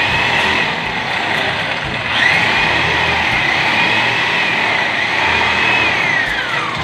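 Electric drill running under load, a loud grinding whine that dips and rises as the bit bites, then falls away near the end as the motor slows.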